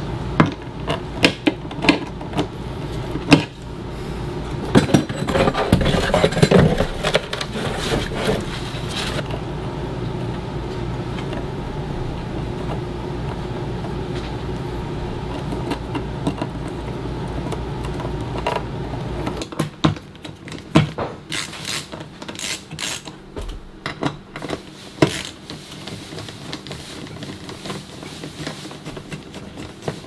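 Light clicks, clinks and scrapes of a metal ceiling light fixture and its wiring being handled and fastened to the ceiling box. Underneath runs a steady low hum that stops about two-thirds of the way through.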